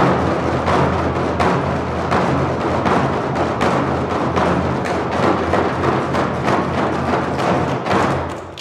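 Korean drum music: rapid, dense drum strikes over a sustained low backing, fading out near the end.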